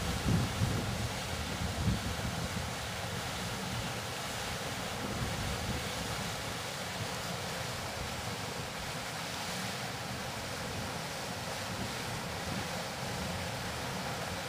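Steady rush of flowing water, with wind buffeting the microphone for the first two seconds or so.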